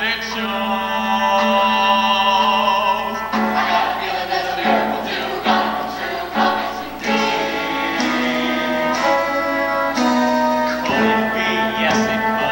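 High school show choir singing a song live with piano and band accompaniment.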